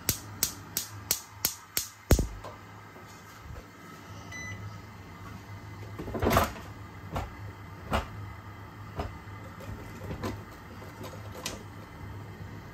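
Gas stove's igniter clicking rapidly, about three clicks a second, then a low thump about two seconds in as the burner catches. After that a steady low hum, a few scattered clicks and one short louder noise a little past the middle.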